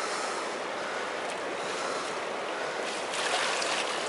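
Steady rushing of a fast-flowing river, swelling slightly about three seconds in.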